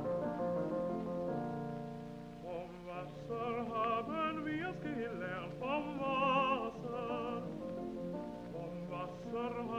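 Background music: sustained chords, then an operatic voice singing with strong vibrato from about two and a half seconds in.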